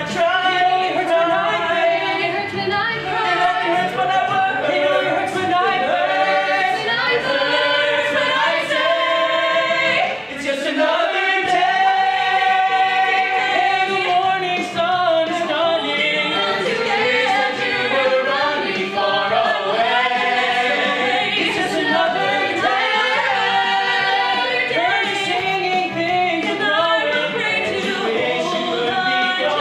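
Several voices singing a musical-theatre ensemble number together, steady and continuous with only a brief dip about ten seconds in.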